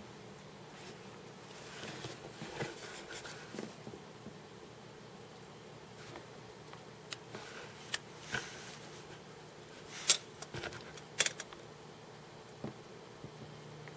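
A low steady hum with scattered sharp clicks and knocks; the loudest come about ten and eleven seconds in.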